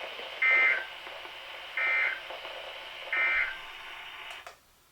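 Emergency Alert System end-of-message code: three short, buzzy data bursts about 1.3 seconds apart, each a fast warble of two tones, over steady radio hiss that cuts off near the end. The bursts signal that the alert broadcast is over.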